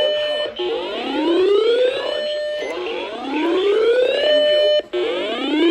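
Electronic whooping alarm tone: a rising sweep that climbs for about a second and a half, holds briefly, breaks off and starts again, three times.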